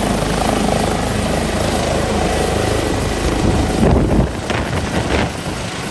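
Helicopter sound: steady rotor chop over a continuous engine rumble.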